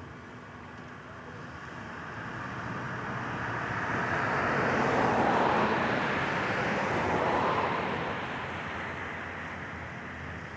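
An aircraft passing by: its engine noise swells to a peak about five to seven seconds in, then fades away.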